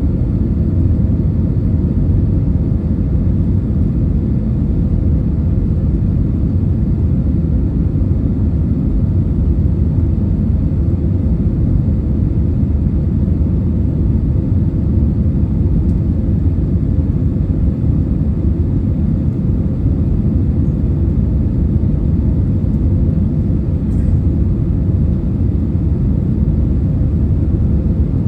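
Steady low rumble of engine and airflow noise inside the cabin of an Airbus A320 airliner, unchanging throughout.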